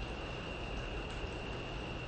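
Steady rain falling on leaves, with the continuous high-pitched trill of crickets over it and a low background rumble underneath.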